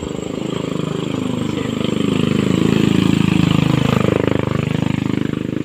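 A motor vehicle engine running close by, with a rapid even firing pulse. Its pitch drops and rises again about four seconds in as it is throttled down and back up.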